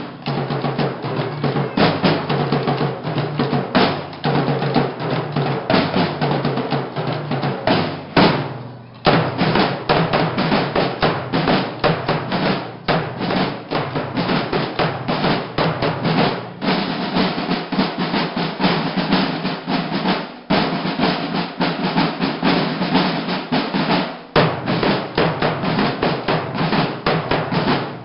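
A school drum and bugle corps' field drums (snares) playing a dense, driving march cadence with rolls. There are short breaks three times.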